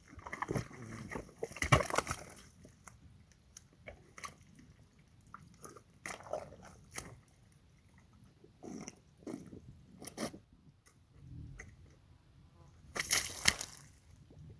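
An animal close to the trail camera's microphone making irregular crunching and clicking noises in short bursts. The loudest bursts come near the start and again about thirteen seconds in.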